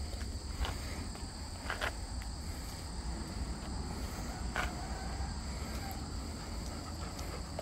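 Insects droning steadily in two continuous high tones, with a low rumble underneath and a few soft clicks or scuffs.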